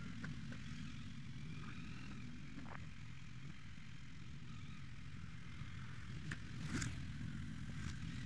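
Yamaha MT-09's three-cylinder engine running at low revs as the motorcycle rolls slowly. A few short sharp clicks come in the second half.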